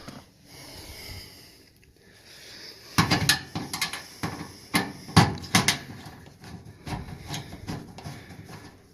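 Metal clanks and knocks as an old Tempstar furnace's sheet-metal casing is handled and taken apart. Sharp strikes come in irregular clusters starting about three seconds in.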